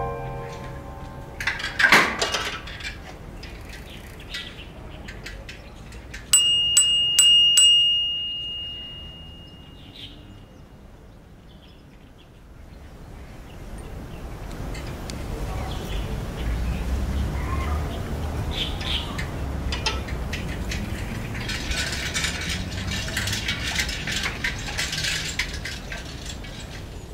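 Bicycle bell rung in a quick run of about five rings some six seconds in, its clear metallic tone ringing on for a couple of seconds. A single knock comes about two seconds in, and quiet outdoor background noise fills the rest.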